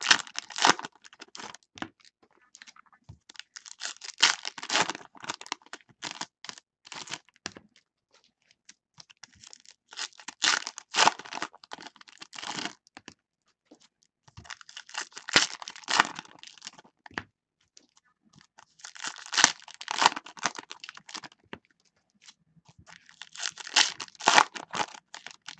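Foil trading-card pack wrappers (2015 Panini Contenders baseball) being torn open and crinkled by hand, one pack after another. The crackling comes in six bouts, each a second or two long, a few seconds apart.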